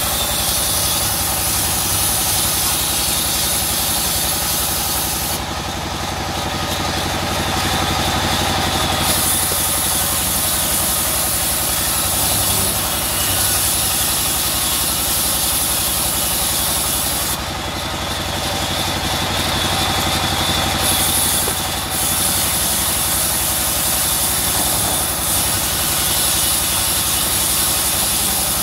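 Sawmill band saw running steadily while a rain tree plank is fed through the blade: a continuous machine hum with a high hiss over it that drops out twice for a few seconds.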